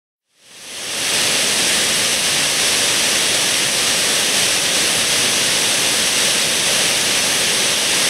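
Dynjandi's terraced waterfall rushing: a steady, dense roar of falling water, fading in from silence over the first second.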